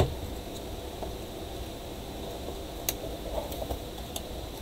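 Handling noise from taking apart a plastic portable speaker: one sharp click right at the start, then a few faint clicks and taps of a small screwdriver against the housing about three seconds in, over a steady hiss.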